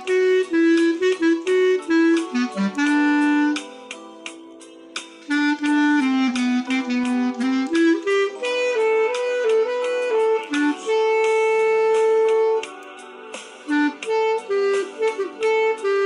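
Solo clarinet playing a melody, one note at a time, with no accompaniment. It pauses briefly about four seconds in and again near thirteen seconds, and holds one long note for about two seconds around eleven seconds in.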